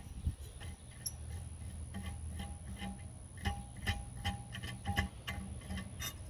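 Irregular light clicks and ticks, a few a second, some with a short metallic ring, from small metal torch parts being handled and worked by hand.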